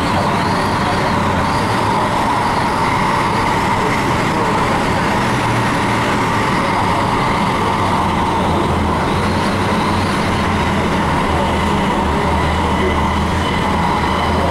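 Inside the cabin of a moving Hong Kong MTR Tung Chung Line K-Train: the steady running noise of the train at speed on the track, a continuous rumble and rush, with a faint thin high whine over it.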